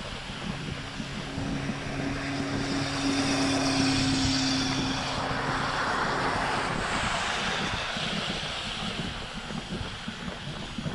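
A passing engine: a steady low hum that swells to its loudest about four seconds in and then fades away, over a rough rush of wind on the microphone.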